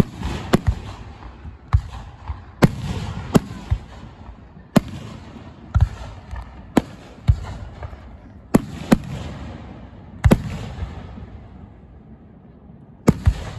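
Aerial firework shells bursting overhead: about a dozen sharp bangs at irregular intervals, each followed by a rolling rumble, with a pause of a couple of seconds near the end before one more bang.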